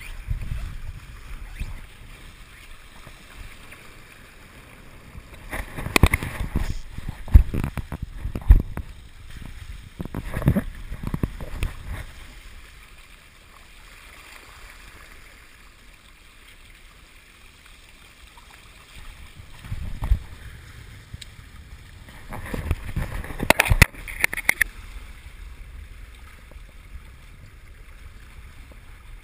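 Water rushing and splashing along the hull of a Hobie Wave catamaran under sail, with two spells of louder splashing, about a third of the way in and again past two-thirds.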